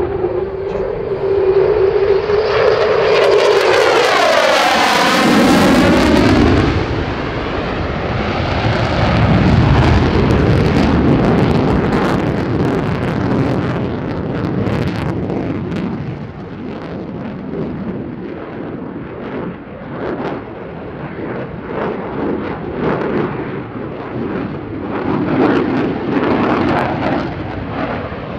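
Lockheed Martin F-35A Lightning II's single Pratt & Whitney F135 afterburning turbofan in a display flypast: loud jet noise that sweeps in pitch as the jet passes a few seconds in, then a crackling rumble that eases somewhat after about 16 seconds and builds again near the end.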